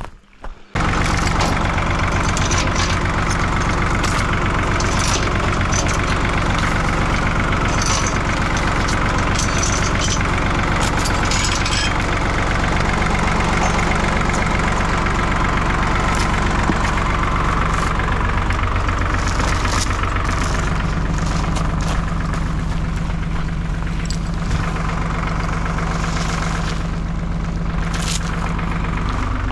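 Tractor engine running steadily, with scattered clicks and rattles over the engine; it starts abruptly about a second in.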